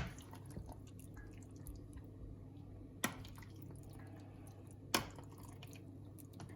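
Spoon stirring raw chicken pieces in thick curry sauce in a plastic box: quiet wet squelching, with three sharp knocks of the spoon against the container, the loudest near the start.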